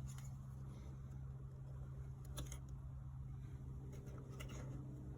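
A few faint clicks of plastic wiring-harness clips being worked loose by hand, over a steady low hum.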